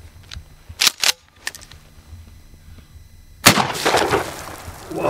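A single shot from a 12-gauge pump-action shotgun firing a short mini-shell slug, about three and a half seconds in, with a long echoing tail. The slug bursts a 2-gallon water jug. Two sharp clicks come a little under a second in.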